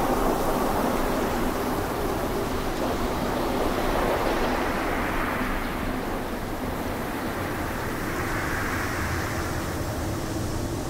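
Typhoon wind rushing steadily, its pitch swelling and easing a few times, with no distinct sounds standing out.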